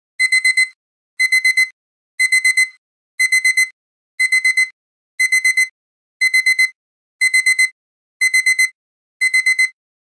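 Electronic alarm-clock beeping in groups of four quick high beeps, one group about every second: the finishing alarm of a countdown timer that has reached zero.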